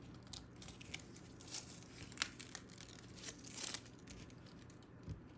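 Vinyl wrap sheet being handled and its excess peeled off the backing, giving faint, irregular crinkling and crackling with a sharper tick about two seconds in.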